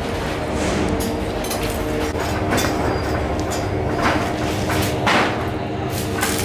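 Steady hum and rumble of metalworking machinery, broken four times by short bursts of harsher metallic noise.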